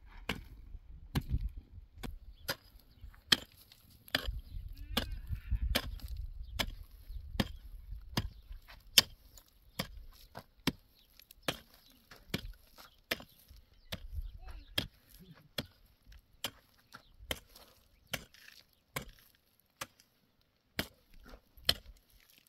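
Repeated chopping blows, sharp and evenly paced at a little more than one a second, with a short pause near the end.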